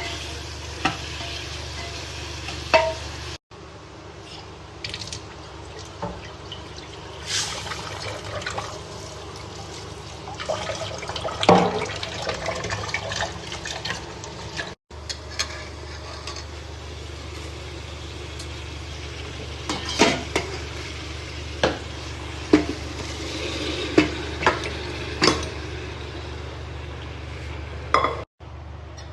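Spoon stirring and knocking against a metal cooking pot, with scattered sharp clinks over a steady low hum, in several short cuts that stop abruptly.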